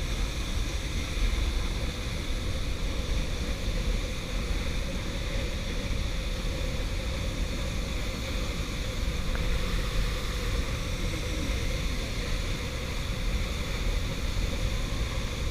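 Steady rushing noise of a waterfall, with a heavy low rumble underneath.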